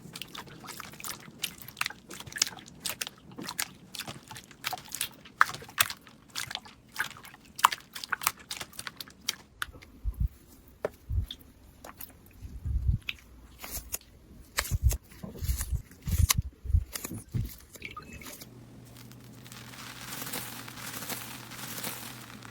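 Crunchy slime being pressed and squished by hand, giving rapid crackling and popping clicks. Through the middle come heavier low thuds, and near the end a soft steady hiss takes over.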